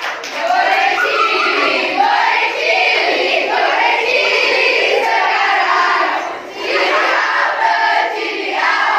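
A group of teenage girls singing together, with a brief break about six and a half seconds in.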